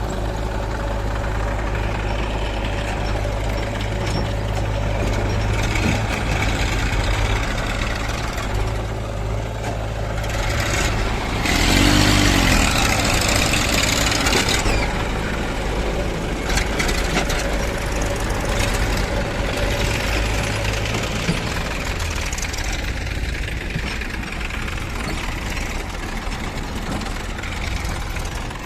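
Diesel engine of a JCB 3DX backhoe loader running steadily while it works, with a louder, noisier stretch of about three seconds about halfway through.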